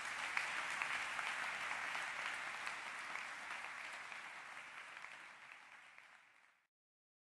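Audience applauding. The clapping slowly fades and then cuts off abruptly near the end.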